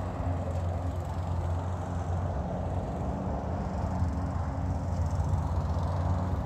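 A steady low machine hum, like an engine running at idle, with a wash of noise above it.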